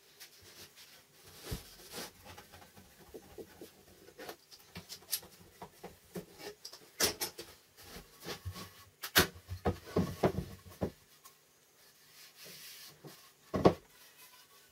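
Steel F-style bar clamps being unscrewed, taken off a glued-up wood block and laid down on a wooden workbench: scattered metallic clicks, clatters and knocks. Near the end, a single louder knock of wood on the bench.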